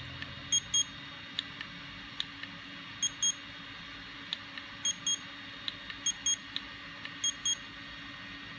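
Short, high electronic beeps, mostly in quick pairs, repeated every second or two, with single sharp ticks in between and a faint steady hum underneath.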